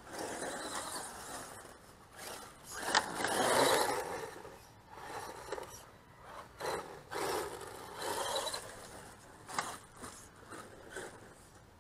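Radio-controlled monster truck driving on loose dirt: uneven bursts of tyres scrabbling and throwing dirt as it accelerates, the loudest about three seconds in, with shorter surges later.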